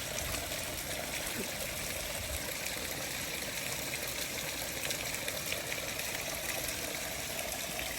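Small floating Yzert solar fountain in a pond, its jet of water splashing steadily back onto the water surface.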